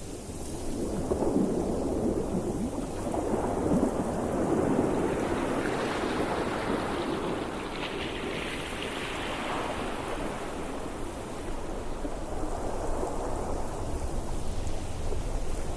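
Ocean surf: a wave surges and washes in, its noise swelling over the first few seconds, brightening around the middle, then easing, with a low rumble building again near the end.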